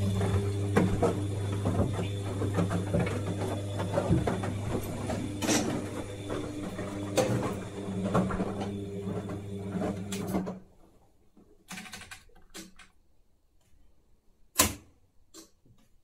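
Siemens WD14H420 washer-dryer running: a steady low mechanical hum with rattling that stops suddenly about ten and a half seconds in, followed by a few small clicks and one sharp click.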